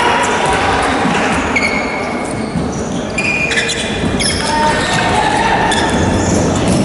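Basketball gym ambience in an echoing hall: a steady din of distant players' and spectators' voices, with a few short, high sneaker squeaks on the hardwood court.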